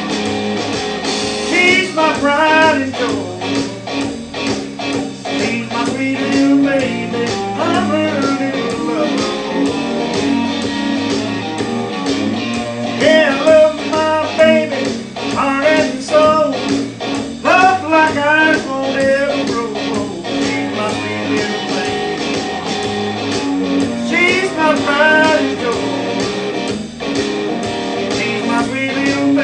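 Blues-rock guitar music: phrases of bent, wavering lead notes over a steady accompaniment.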